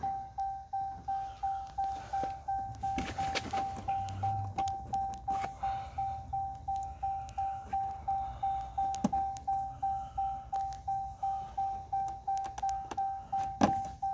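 Pickup truck's door-open warning chime, one fading electronic tone repeating steadily about two and a half times a second while the door stands open. A few sharp clicks and knocks come from hands working on the door trim, the loudest near the end.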